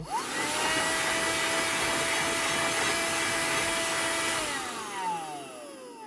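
Bullsone Extreme Power handheld car vacuum cleaner switched on, its motor whine rising quickly, then running steadily with a loud rush of suction air. About four and a half seconds in it is switched off, and the whine falls away as the motor winds down.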